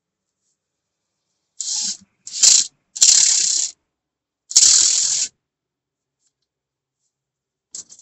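Four short bursts of mechanical noise, each under a second, from a truck's steering column and combination switch being worked by hand.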